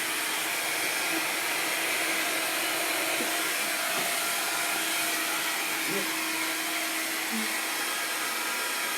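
Hoover vacuum cleaner running steadily: a constant motor whoosh with a faint steady hum under it.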